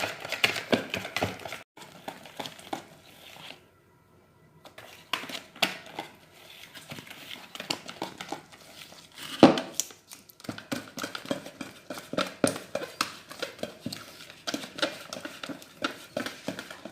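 Cake batter being stirred by hand in a bowl: an irregular run of wet scraping and clicking of the utensil against the bowl as the flour is worked in, with a short pause about four seconds in and one louder knock about halfway through.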